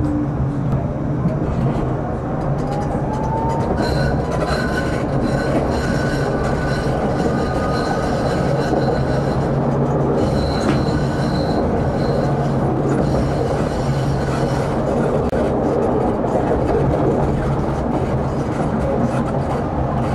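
Tram running along the track with a steady rumble. A motor whine rises in pitch over the first several seconds, and high wheel squeal comes and goes as it takes the curves.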